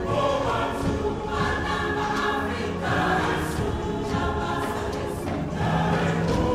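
Background music of a choir singing sustained chords that change every second or so.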